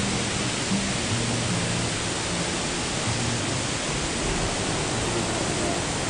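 A 23-metre-high waterfall and the rapids below it: a steady, full rush of water pouring onto rocks and churning over boulders.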